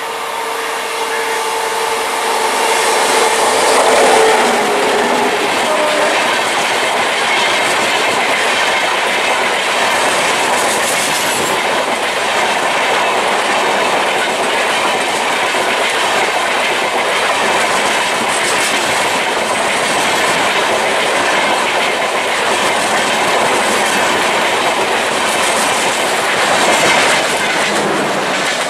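Electric locomotive-hauled passenger train passing close by at speed: a steady rushing clatter of wheels over rail joints as the coaches run past. A steady horn-like tone sounds for the first few seconds and drops slightly in pitch as it ends.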